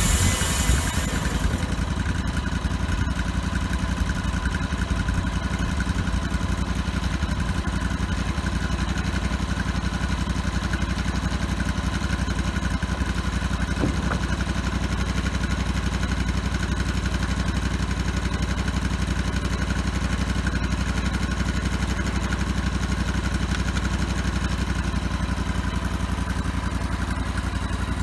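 Gasoline engine of a homebuilt bandsaw sawmill running steadily at a constant speed as the saw head travels along the log. A high hiss dies away in the first second or two.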